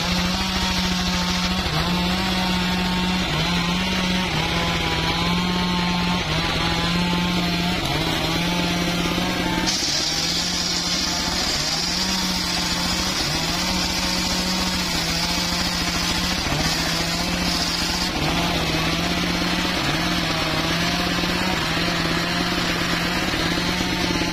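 Homemade engine-driven circular saw running and ripping a mahogany log, with background music with a repeating bass line laid over it.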